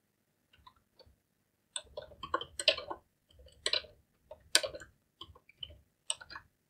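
Computer keyboard keys clicking in short, irregular runs of keystrokes as code is typed, a few faint taps at first, then quicker bursts from about two seconds in.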